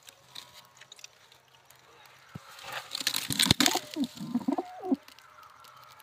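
Domestic pigeons in a nest box: about three seconds in there is a stretch of rustling with a sharp tap, then a short run of low coos that bend up and down.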